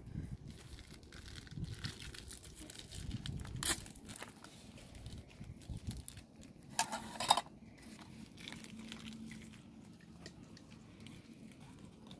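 Plastic packet crinkling and rustling as it is handled, loudest in a short burst about seven seconds in, with scattered light clicks and taps around it.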